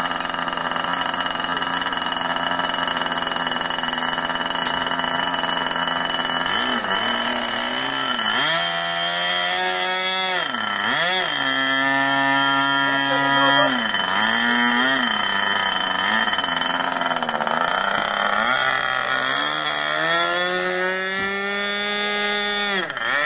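Radio-controlled model airplane's engine idling, then throttled up and down several times in long rising and falling sweeps of pitch during a pre-flight run-up.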